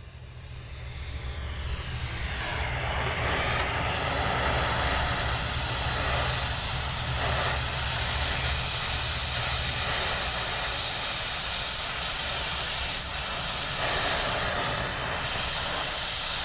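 Brazing torch flame hissing steadily, building up over the first two or three seconds, while a TXV is brazed into the copper refrigerant lines of an AC coil.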